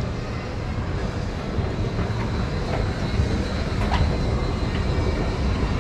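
Train station ambience: a steady low rumble with background noise, and a few faint clicks near the middle.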